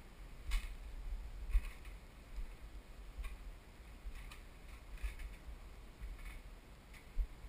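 Footsteps on a wooden staircase and plank floor, soft knocks about once a second, over the low rumble of a handheld camera being carried.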